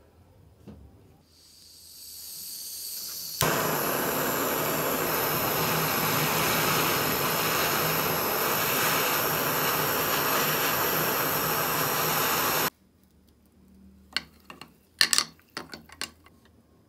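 Handheld butane jet torch: gas hisses on and swells, then the torch lights with a sudden jump about three seconds in and burns with a loud, steady jet-flame hiss for about nine seconds before cutting off abruptly. A few sharp clicks and clinks follow near the end.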